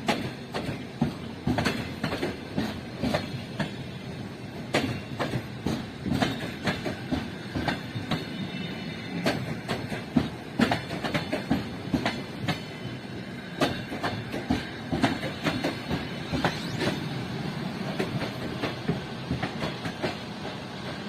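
Passenger train coaches rolling past, their wheels clacking irregularly over rail joints and points, with a faint wheel squeal in the middle.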